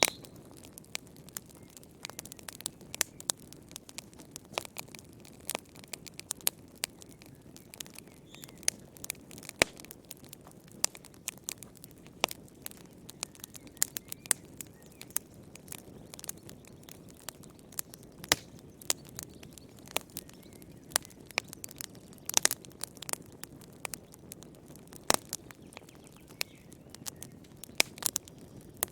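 Wood fire in a fireplace crackling: irregular sharp pops and snaps, several a second, over a soft steady hiss of flames.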